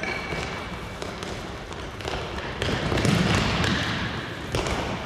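Game sounds of an indoor futsal match: the ball being kicked and thudding on the hall floor amid echoing court noise, louder for a couple of seconds about halfway through.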